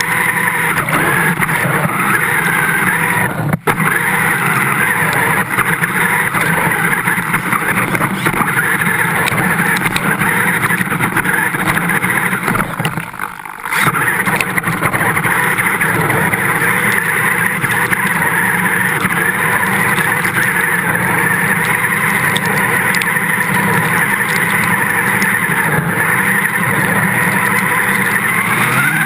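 A radio-controlled vehicle's motor running steadily as it moves through lake water, with water splashing around it. The sound dips briefly about 13 seconds in.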